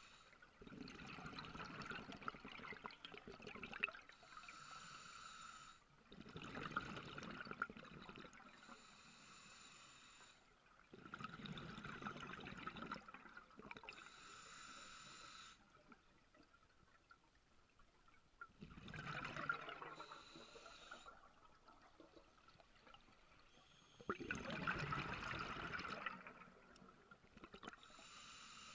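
Scuba diver breathing through a regulator underwater: a short hissing inhale, then a longer gush of exhaled bubbles. The cycle repeats about five times, slow and even, with one longer pause midway.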